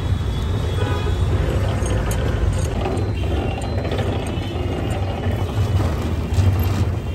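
Sugarcane juice machine running, its grooved steel rollers crushing sugarcane stalks: a steady mechanical grinding sound.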